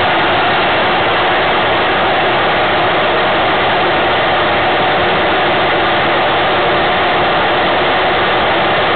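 Steady, even rushing noise on a small onboard camera's microphone, with no engine or motor note.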